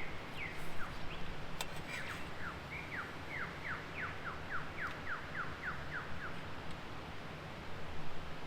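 A bird calling a run of quick whistled notes, each sliding downward in pitch, about three or four a second for several seconds, over a steady low rumble.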